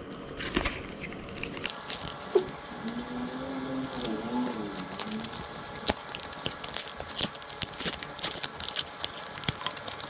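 Cardboard-and-plastic packaging of a RAM stick being bent, cracked and torn open by hand: a dense run of crackles and sharp clicks that starts about two seconds in.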